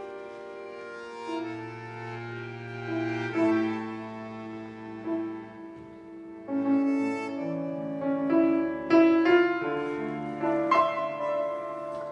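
Slow instrumental music played live on a grand piano, with a second instrument carrying long, sustained melody notes over the piano chords.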